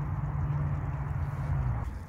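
A man's long, steady hummed "mmm" of enjoyment while chewing a mouthful of food, stopping shortly before the end.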